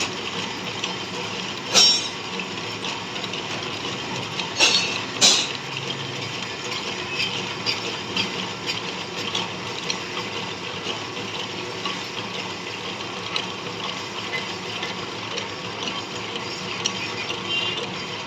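Metal lathe running with a steady mechanical rattle and many small metallic ticks. There are three loud sharp clanks: one about two seconds in and two close together near five seconds.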